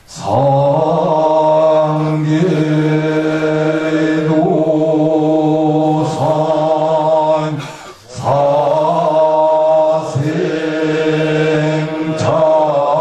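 A group of voices chanting a Korean Buddhist chant in unison, in long held notes, pausing together for breath about eight seconds in.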